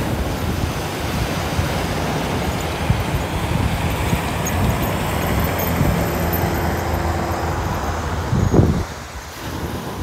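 Ocean surf and wind on the microphone with a steady low engine drone underneath. The drone stops about eight and a half seconds in, and the overall sound drops a little.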